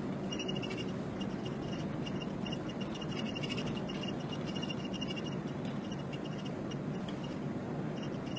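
Steady low running noise of a vehicle's engine and tyres heard inside the cabin while it drives slowly up an icy road, with a faint high chirping that repeats on and off over it.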